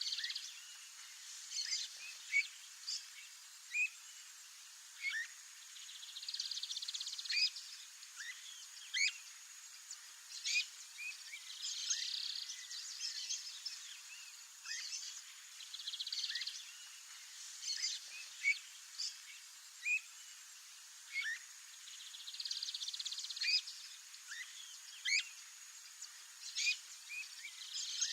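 Streamer-tailed tyrant calling: short, sharp notes that sweep upward, repeated about every second. A longer buzzy chatter comes every five or six seconds, over a steady high hiss.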